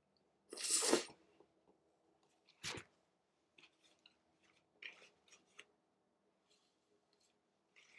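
A paper napkin being handled and rubbed on a shirt: a loud rasping rustle about half a second in, a shorter one a little before three seconds, then light scattered rustles and clicks.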